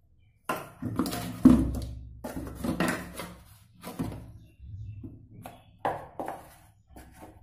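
A metal spoon clinking and knocking against bowls and containers on a kitchen counter, in a series of irregular taps and clatters. The loudest is a dull thump about one and a half seconds in.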